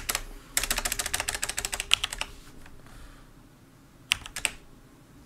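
Typing on a computer keyboard: a quick run of keystrokes for about a second and a half, then two louder single key taps about four seconds in.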